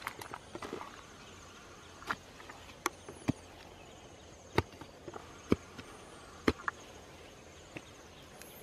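A wooden digging stick jabbing into wet earth: several sharp, irregularly spaced knocks, a second or so apart.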